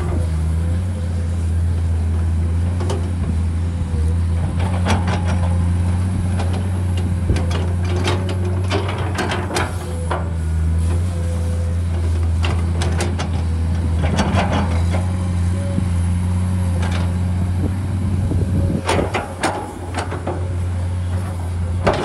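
Komatsu PC210 hydraulic excavator working: its diesel engine runs with a steady low drone and a thin whine over it, broken by clusters of clanks and scrapes as the bucket pushes and spreads loose soil.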